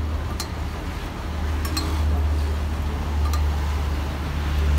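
Milk tea being pulled: poured in a long stream from one stainless steel mug into another, splashing into the lower mug, with a few light metallic clinks of the mugs. A steady low rumble runs underneath.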